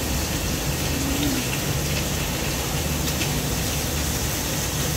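Steady sizzling hiss of thin pork slices cooking on an electric grill pan, with a few faint crackles.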